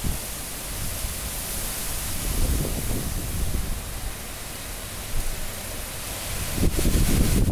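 Cyclone-force wind blowing steadily, with gusts swelling about two seconds in and again near the end, bringing a deep rumble.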